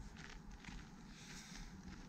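Footsteps on a snow-covered path at a steady walking pace, faint, about two steps a second.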